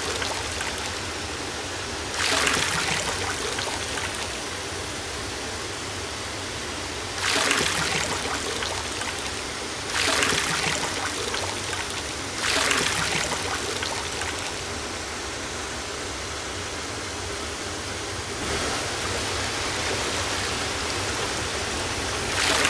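Seawater sloshing and splashing as fish in a plastic bag are rinsed in the shallows, coming in several louder surges over a steady wash of water noise.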